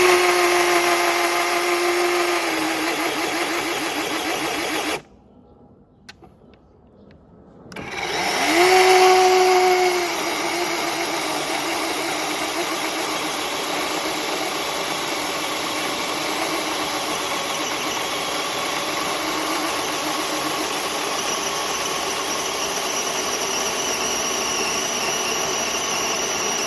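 DeWalt 20V battery-powered chainsaw with a 16-inch Oregon bar, mounted on a mini chainsaw mill, cutting lengthwise through a log. It runs until about five seconds in and stops for a few seconds. About eight seconds in it whines up again with a rising pitch, then cuts steadily under load.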